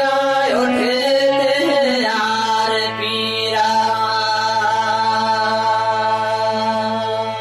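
Gojri devotional folk song: a man's voice sings a wavering, drawn-out phrase over harmonium, and about two seconds in the music settles into long, steady held notes over a low drone.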